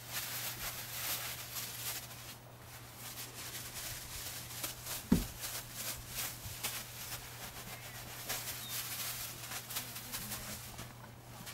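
Plastic bag crinkling and rustling in irregular crackles as it is rubbed over a horse's coat, with one dull thump about five seconds in. A steady low hum sits underneath.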